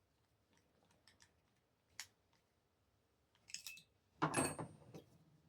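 Small clicks and light rattles of hands handling the metal and plastic parts of a Traxxas 3.3 nitro model engine while fitting its carburetor and throttle linkage, with a louder scraping rattle about four seconds in.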